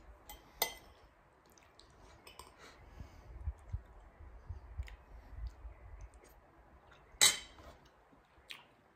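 Quiet sounds of a man eating noodles: a metal spoon clicking and scraping against a glass plate, with soft chewing. A brief, louder scrape comes about seven seconds in.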